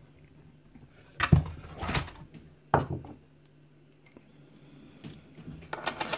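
Sharp metal clinks as lock picks and a pin-tumbler lock cylinder are handled: three separate clicks about a second apart, a quiet spell, then a quick light metallic rattle near the end.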